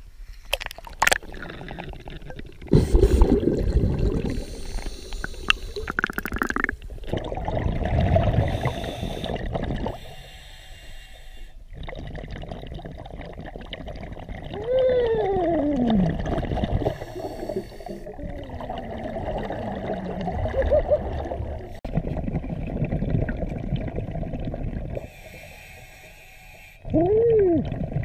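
Underwater sound of scuba diving: the diver's regulator breathing with gurgling, rumbling bursts of exhaled bubbles. A few short whistling tones rise and fall in pitch, about halfway through and near the end.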